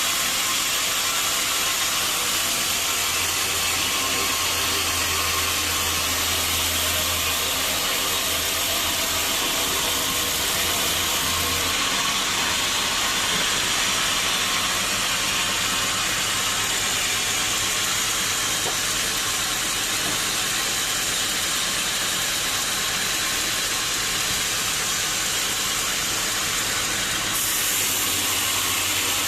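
Sawmill saw cutting through a teak log: a loud, steady machine noise, with a low hum underneath that drops away about twelve seconds in.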